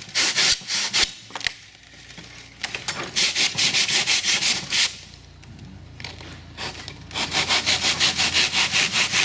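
A hand-held length of cut-off bandsaw blade sawing through cured two-part polyurethane foam with quick back-and-forth strokes, in three runs separated by short pauses. The foam cuts easily.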